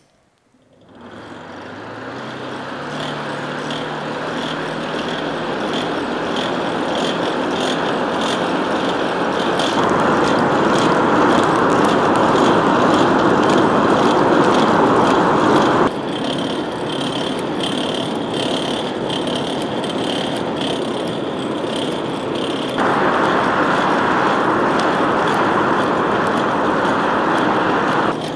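Forge blower spinning up, its hum rising in pitch over the first few seconds, then a steady rush of forced air through a burning charcoal forge fire with constant crackling. The level steps up and down abruptly a few times.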